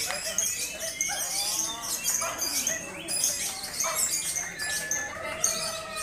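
Many caged lovebirds singing at once: a dense, continuous chatter of high, rapid chirps and trills.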